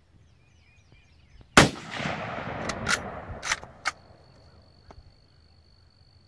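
A single shot from a Mosin-Nagant M38 carbine in 7.62×54R: a sharp crack about a second and a half in that echoes away over about two seconds. Four quick metallic clicks follow as the bolt is worked to eject the spent case and chamber the next round.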